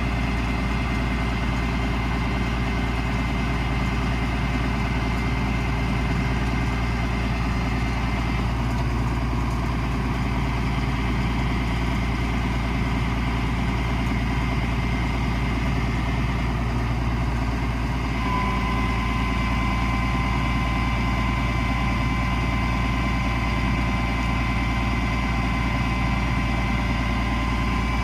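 Cummins 5.9 diesel engine idling steadily, with faint high whines over it: one shifts about eight seconds in, and a clearer higher whine starts suddenly about eighteen seconds in.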